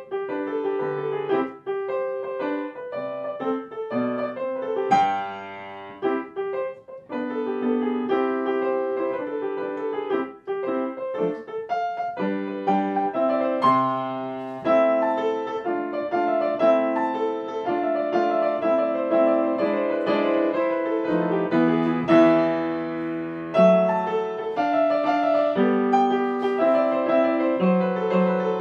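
Piano music, a continuous run of notes.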